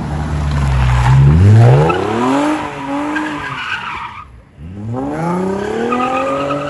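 Toyota Mark X's V6 engine revved hard while the tyres spin and squeal in a sliding turn. The revs climb about a second and a half in, drop away briefly about four seconds in, then climb again.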